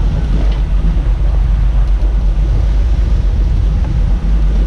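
Boat engine running under way, with wind buffeting the microphone and the rush of water.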